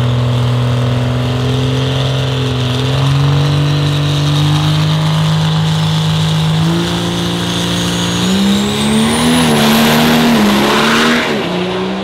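Diesel quad-cab pickup truck on the drag-strip starting line, its engine held at a steady raised rev that steps up in pitch twice, with a high whistle climbing over it. About eight seconds in it launches hard, the engine note wavering and rising under a loud rush of noise as it pulls away down the track.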